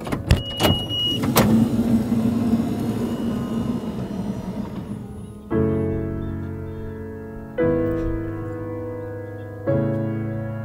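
Several sharp clicks and a brief high beep, then a few seconds of mechanical whirring. From about halfway, slow piano chords play, one roughly every two seconds.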